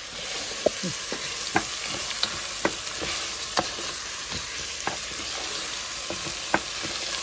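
Rice and arpa şehriye orzo sizzling in butter in a nonstick pot while a wooden spoon stirs them: the rice being toasted for pilaf. A steady hiss with irregular taps and scrapes of the spoon against the pot about once a second.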